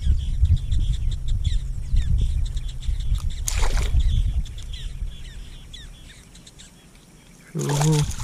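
A hooked trahira thrashing at the water's surface on the line, splashing sharply about three and a half seconds in and again, louder, near the end. Birds chirp throughout, and a low rumble fades out over the first half.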